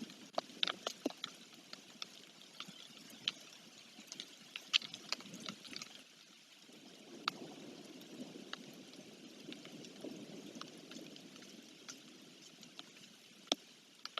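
Rain falling, with irregular sharp drops tapping close to the microphone over a steady hiss.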